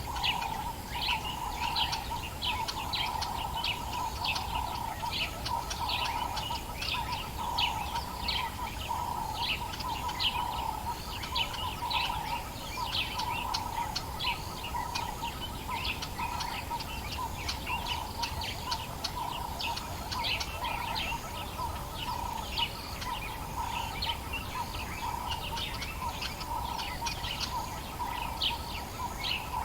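Dawn chorus of African bush birds, many short chirps overlapping without a break, over a steady wavering hum and a faint low rumble.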